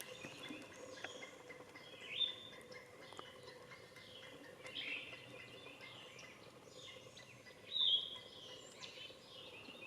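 Birds calling: a string of short, repeated chirps, with louder calls about two, five and eight seconds in.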